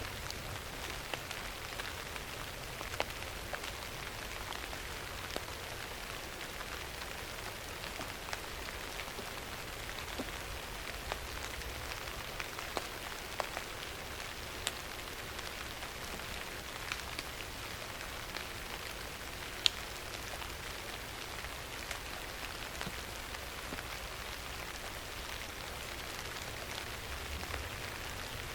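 Steady rain falling in a forest, an even hiss scattered with sharp individual drips, one louder drop about two-thirds of the way through.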